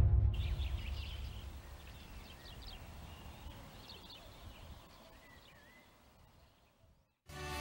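Outdoor ambience with small birds chirping in short calls over a low rumble that dies away early on, the whole fading out to silence near the end.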